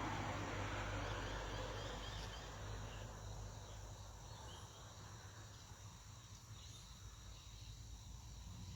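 Faint, steady chirping of crickets in a rural evening setting, over a low background rumble that fades over the first few seconds.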